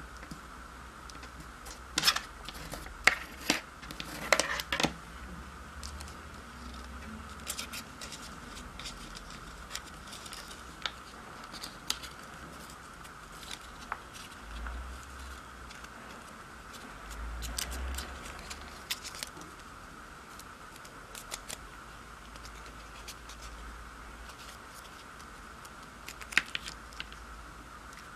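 Origami paper being folded and creased by hand: crisp crackles and taps, with a cluster of sharp ones about two to five seconds in, then scattered softer clicks and rustles, and another sharp crackle near the end.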